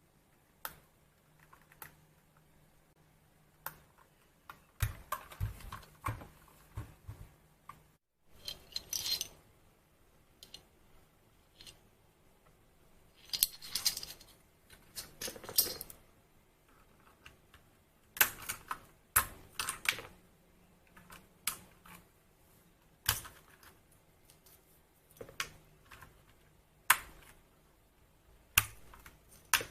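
Sparse, irregular clicks and a few short clusters of clatter from an Anne Pro 2 mechanical keyboard with Gateron Red switches.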